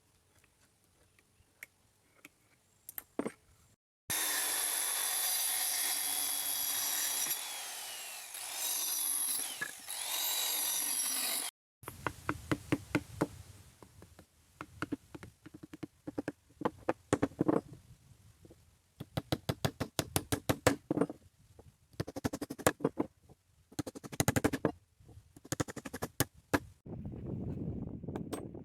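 An electric power tool cutting wood runs steadily for about eight seconds and stops abruptly. It is followed by long runs of sharp, quick knocks, like a hammer driving nails into wood.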